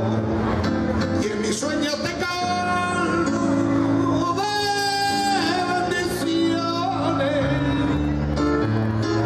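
Background music: a song with a singing voice holding long notes over an instrumental backing.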